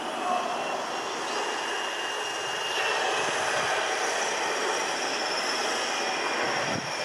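Embraer E175 regional jet's turbofan engines running: a steady rushing noise with high, steady whine tones held over it.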